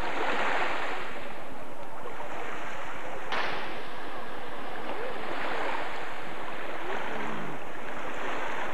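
Small sea waves washing on a sandy shore, the surf noise swelling and easing, with wind buffeting the microphone.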